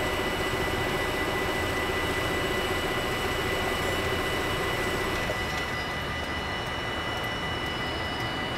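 Dutch level crossing's mechanical warning bells ringing fast and without a break while the barriers are down, heard as a steady dense ringing. The highest part of the ringing thins out about five and a half seconds in.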